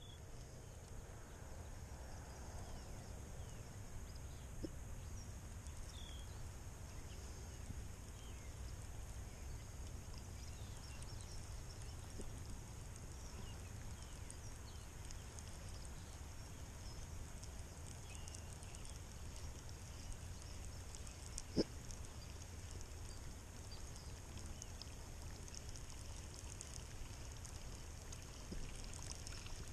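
Faint outdoor ambience: a steady high-pitched chirring over a low rumble, with a single sharp click about three quarters of the way through.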